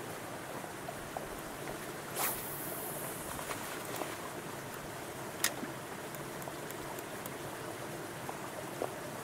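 A cast with a spinning rod: a short swish about two seconds in, trailing into a brief hiss as the line pays off the reel, then a sharp click a few seconds later, likely the bail snapping shut, over a steady background of lapping lake water.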